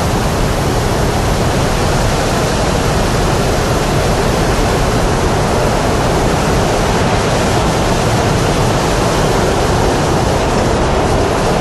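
Steady rush of blowing air, an even hiss that holds at the same level without gusts or breaks.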